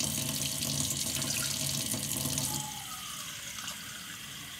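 Water running from a kitchen tap into a plastic measuring cup as it fills. It is louder for the first two and a half seconds, then softer while the tap keeps running.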